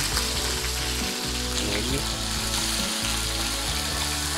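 Marinated chicken pieces sizzling steadily as they fry in oil in a hot non-stick pan.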